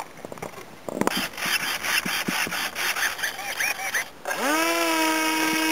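Rubbing and scraping from handling, then, about four seconds in, the RC plane's motor spins up quickly and settles into a steady whine.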